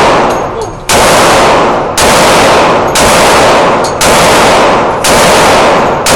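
Taurus Millennium .45 ACP pistol fired at a steady pace of about one shot a second, six shots in all. Each shot is very loud, with a long ringing tail that carries into the next.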